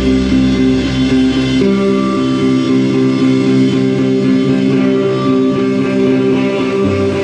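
Instrumental guitar music with sustained, ringing notes held steadily. A low bass note fades out about two and a half seconds in.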